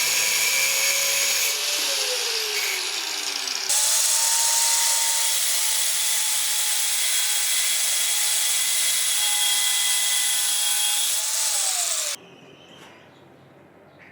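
An electric power tool with a whining motor working on metal, with a loud, hissy, high-pitched cutting or grinding noise. The motor pitch sags twice as it is loaded. The sound changes abruptly about four seconds in and cuts off suddenly near the end.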